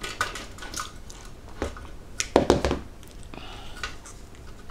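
Small metal clicks and clinks of pliers and the tin-plate parts of a model steam tractor kit being handled, with a louder clatter about halfway through.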